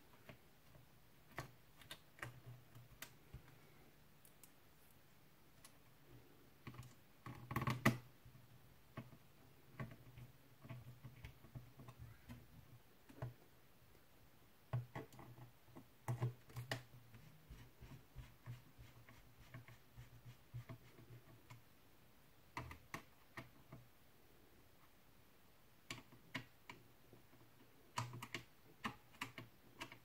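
Faint, irregular light clicks and taps of fingers and a small screwdriver on the plastic and metal of an opened laptop's heatsink and fan assembly, with a louder flurry of clicks about eight seconds in.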